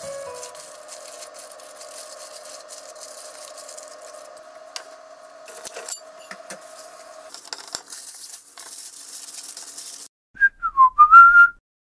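Aluminium foil crinkling over background music with a long held whistle-like note. Near the end, after a brief silence, a short, loud whistle-like sound effect dips and then rises in pitch.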